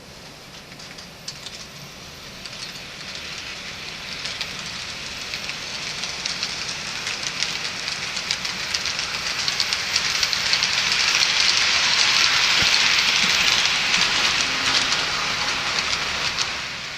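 A train running on rails, wheels clicking over the rail joints with a steady hiss. It grows louder as it approaches, then falls away quickly near the end.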